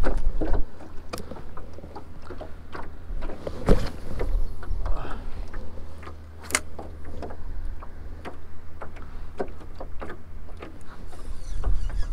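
Water slapping against a jon boat's hull in irregular small knocks and taps, over a low steady rumble.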